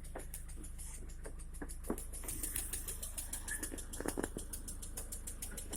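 Car engine idling with a fast, even knock over a steady low hum. The knock is still there 6,000 km after the piston group was replaced with non-interference pistons.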